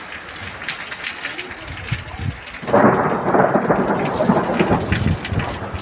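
Steady rain falling, then about halfway through a sudden, loud rumble of thunder breaks in and goes on.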